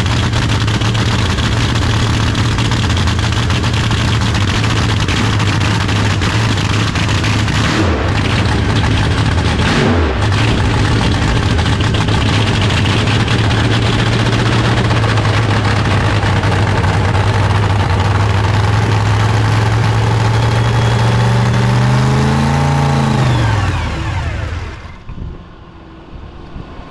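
Nitro drag-race Camaro's V8 engine running at a loud, steady idle, dipping briefly twice about eight and ten seconds in. Near the end it winds down in pitch and is shut off.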